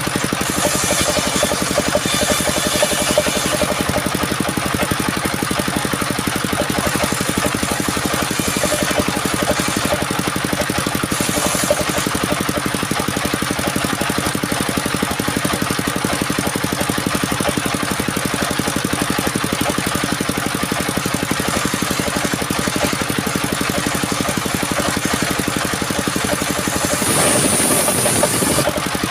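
A small engine running steadily at an even speed, with a brief change in its sound and added hiss near the end.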